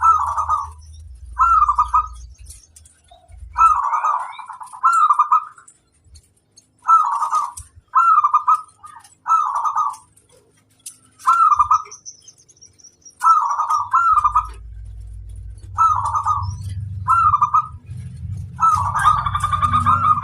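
Zebra dove (perkutut) cooing: a series of short, bubbling coo phrases, repeated again and again with brief pauses, running into a longer unbroken phrase near the end. A low rumble sits underneath at the start and again in the last third.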